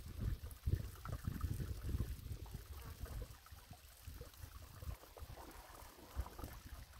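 Gusty wind rumbling on the microphone, rising and falling irregularly, with faint scattered crackles.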